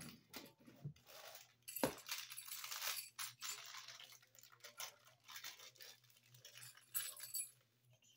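Handling of a 50 amp range cord and its metal strain-relief connector: rustling of the cord with light metallic clinking and jingling, in irregular bursts, the busiest about two to three seconds in and again near seven seconds.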